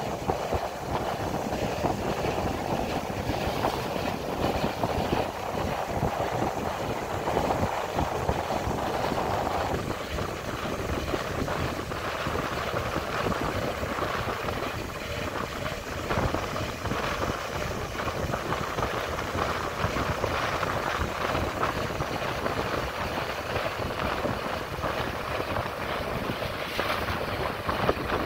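Wind rushing and buffeting on the microphone over the steady running of a motorcycle on the move.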